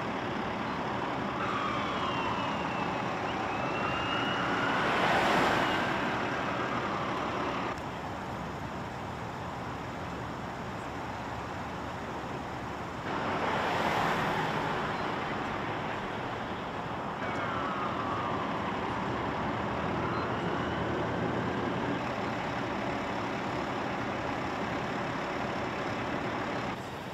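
An emergency vehicle siren wailing, its pitch sweeping up and down, heard in two stretches over steady road traffic. Cars pass close by twice, about five seconds in and again around the middle, as louder swells of tyre and engine noise.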